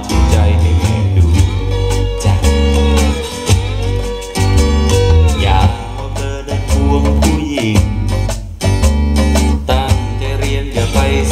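A pop-rock song playing, with guitar over a heavy bass line and no sung words.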